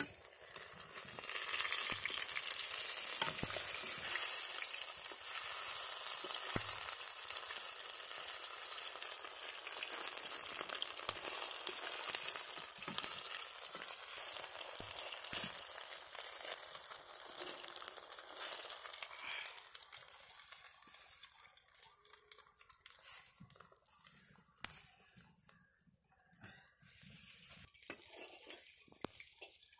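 Pumpkin flowers frying in oil in an iron wok: a steady sizzle with fine crackling. About two-thirds of the way through, it dies down to quieter, patchy crackles.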